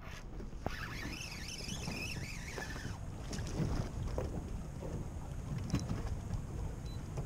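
Wind on the microphone and water around a small boat, a steady low rumble. From about one to three seconds in, a wavering high whine sounds over it.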